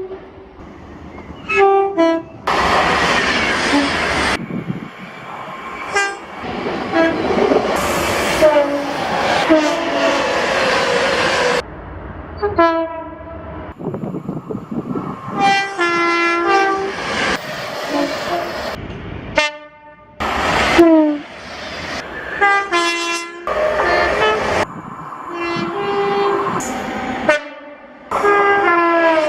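A run of different train horns, one short recording after another, each sounding one or more loud blasts; several drop in pitch as the train goes by. Between the blasts come the rumble and rush of passing trains, and each recording breaks off abruptly into the next.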